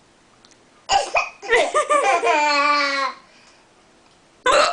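A sharp hiccup about a second in, followed by a drawn-out laugh whose pitch slowly falls, then another short hiccup near the end.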